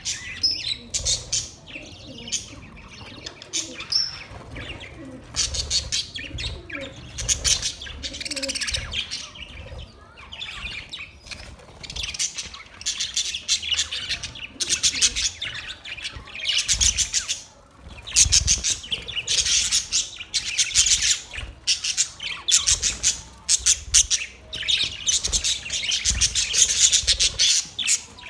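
Budgerigars chirping and chattering continuously in a dense, rapid warble of overlapping high chirps, with only brief pauses.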